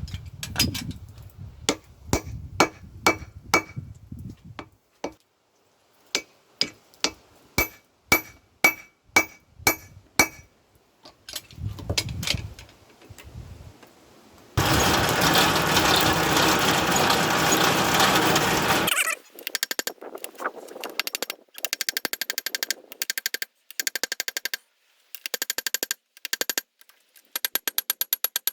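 Hammer blows on hot mild steel over an anvil, runs of strikes about two to three a second, each with a short metallic ring, separated by pauses. About halfway through, a loud steady rushing noise lasts some four seconds, followed by fast, rapid clicking.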